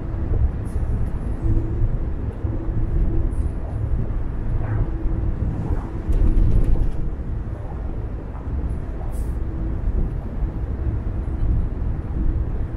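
Car driving along a road: a steady low rumble of tyres and engine.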